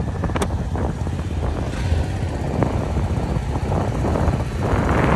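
Motorcycle running along the road, a steady engine rumble with wind buffeting the microphone.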